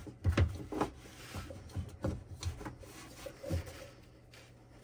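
Adjustable oil filter wrench being turned on a jet-ski engine's spin-on oil filter to break it loose, metal and plastic rubbing, with a few light clicks and knocks spread through.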